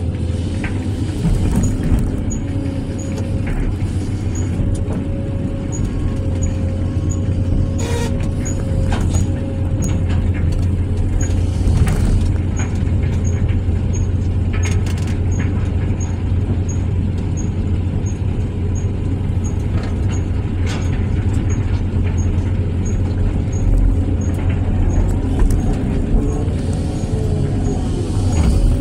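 Hydraulic excavator's diesel engine running steadily, heard from the operator's cab, with a steady whine over it and a few knocks as the bucket digs and moves soil.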